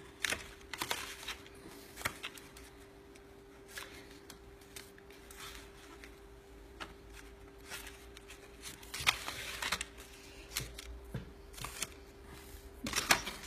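Cardstock paper petals rustling and crinkling as a hand presses them down onto a layered paper flower, in short irregular rustles, with a faint steady hum underneath.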